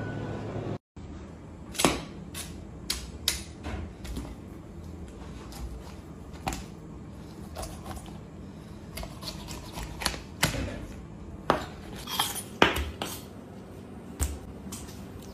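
A kitchen knife scraping and tapping against a whole raw fish on a cutting board, scaling it: a run of irregular sharp scrapes and clicks, some loud, a few in quick clusters.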